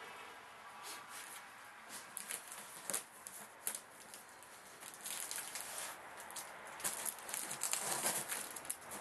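Gloved hands handling a strapped cardboard shipping box: scratchy rubbing and scraping on the cardboard and plastic straps, with scattered small clicks and knocks as the box is tipped up onto its end. The sound is busiest and loudest in the second half.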